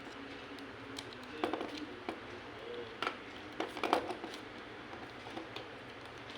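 Scattered light clicks and taps of small tools and phone parts being handled on a work surface, with a cluster of quick clicks a little after the middle.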